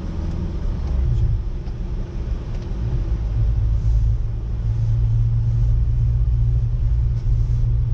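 Car driving along, heard from inside the cabin: a steady low engine and road drone that grows a little stronger about a second in.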